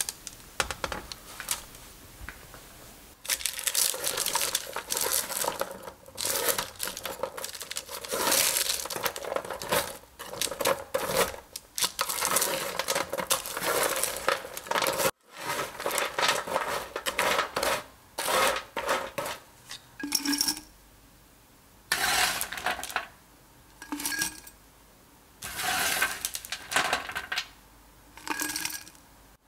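Wooden spatula scraping across a parchment-lined baking tray, breaking up crisp baked granola clusters with a dense crackling rattle. In the last third, granola clusters drop into a glass jar in about five separate short rattling clatters with pauses between.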